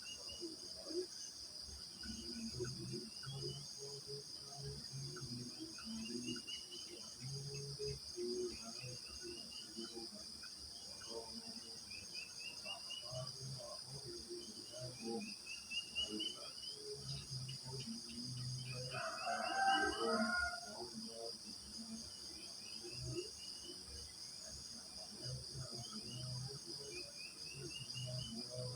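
Crickets chirping in a steady high-pitched drone, with birds singing over it: a short run of rising notes repeats every couple of seconds. A louder, lower call stands out about two-thirds of the way through.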